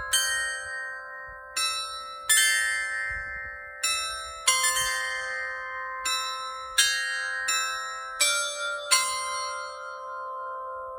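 A set of tuned bells playing a slow melody, one struck note about every second, each ringing on and fading under the next.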